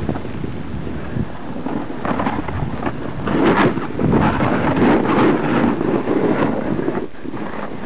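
Wind buffeting the microphone of a camera carried down a slope on a snowboard, mixed with the rough scraping of the board over snow. The scraping gets louder and choppier from about three seconds in, easing off near the end.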